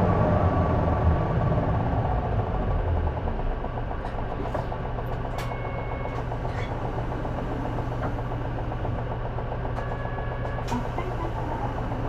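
J-Bus city bus diesel engine dropping from running under load to a steady idle over the first few seconds, then idling with a low steady hum. Two brief high beeps sound partway through.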